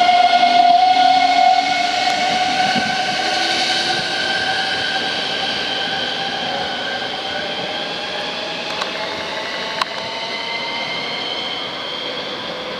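Siemens Desiro electric multiple unit pulling away: a steady electric whine that rises slowly in pitch as the train accelerates, fading as it leaves. A single sharp click about ten seconds in.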